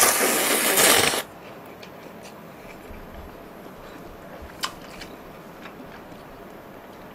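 A person slurping up a long mouthful of jjamppong noodles in one loud, hissing slurp that stops about a second in. Faint chewing and a few small clicks follow.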